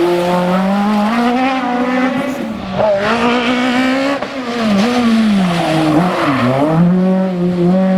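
Renault Mégane Maxi kit car's two-litre four-cylinder rally engine at full pace, its note climbing and falling through gear changes and lifts, with a sharp drop about six seconds in before it picks up again.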